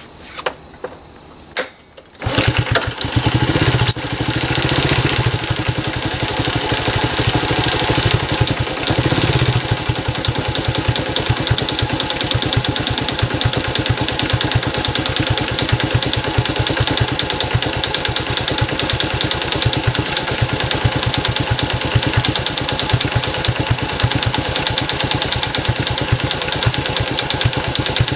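A few clicks, then an engine starts about two seconds in and keeps running steadily with a fast, even firing pulse.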